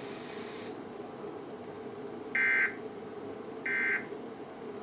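Emergency Alert System SAME data tones: two short, identical bursts of rough, buzzing digital warble about 1.3 s apart, the end-of-message code that closes the test, over a steady hum. A faint high whine cuts off under a second in.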